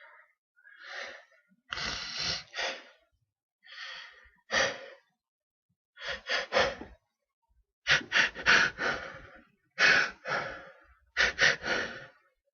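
A man's gasping, catching in-breaths in short runs of two to four, coming every second or two and growing louder toward the end: the build-up to a sneeze from a tickle in the nose.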